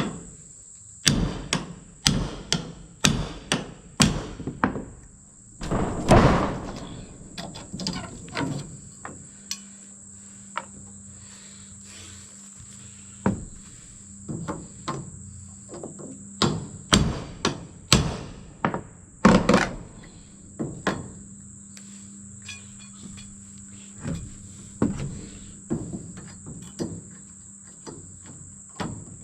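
Hammer blows on wood: a quick run of about two strikes a second at first, then scattered heavier blows. A steady high-pitched drone of insects runs underneath.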